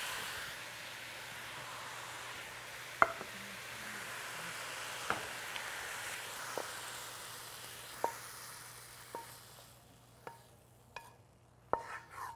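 Shredded carrot and pork sizzling in a wok as it is stir-fried, with sharp clicks of a wooden spatula against the wok every second or two. The sizzle fades out about ten seconds in, leaving quicker spatula taps as the dish is scraped out of the wok onto a plate.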